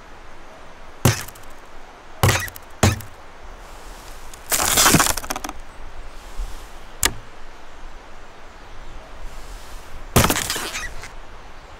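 Ice on frozen laundry cracking and snapping as the stiff cloth and its icicles are flicked and grabbed. Three sharp single cracks come in the first three seconds, a longer crunching crackle about five seconds in, one more snap a couple of seconds later, and another crackling crunch near the end.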